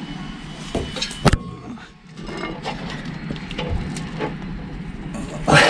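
Metal clanks and knocks as an exhaust tailpipe is worked onto its rubber hanger, with one sharp knock a little over a second in and a louder scraping burst near the end.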